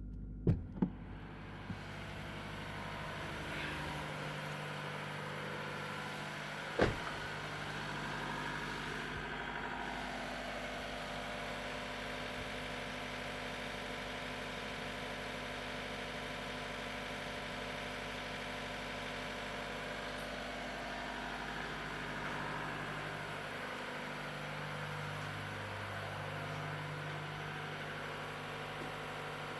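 Mazda3 engine idling steadily at a raised idle speed, noisier than a normal idle. The higher idle is the car's engine purification cycle, not a fault. A couple of sharp clicks come in the first second, and another comes about seven seconds in.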